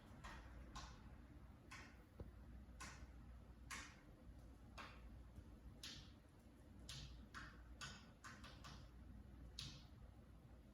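A cockatiel beak banging: faint, short knocks of its beak against a fan, about a dozen in an irregular rhythm of roughly one a second, some coming in quick pairs.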